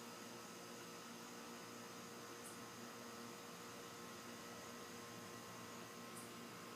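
Faint steady electrical hum with a soft hiss, and two tiny ticks; no thunder is heard.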